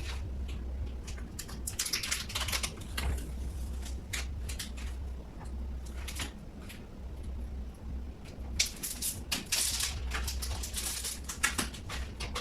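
Handling noises: irregular bursts of rustling and clicking, busiest about two seconds in and again in the last few seconds, over a low steady hum.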